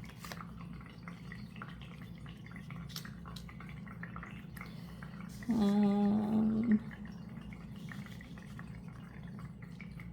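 A person's short, steady-pitched hum ("mmm") lasting a little over a second, about five and a half seconds in, over a quiet room background with a few faint ticks.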